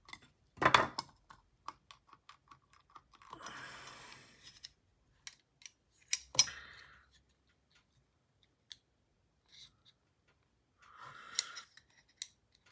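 Small metal clicks, taps and clinks of folding-knife parts and tools being handled during disassembly, with a louder clink about a second in and another around six seconds, and a brief scraping rustle near four seconds.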